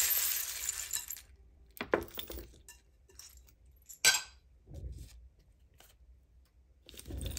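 A handful of plastic letters, tiles and small metal charms rattling together for about the first second. They clatter onto a hard table top about two seconds in, with another sharp clink around four seconds and a few soft knocks after.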